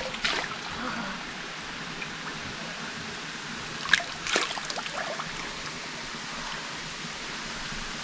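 Shallow stream running steadily over rocks, with splashes from hands scooping water and throwing it onto a face: a couple at the start and a few more about four seconds in.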